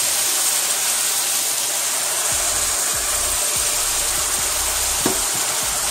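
Hot water poured into a hot frying pan of chicken and spices, sizzling and hissing steadily as it boils off into steam, with a few soft knocks of the spatula in the second half.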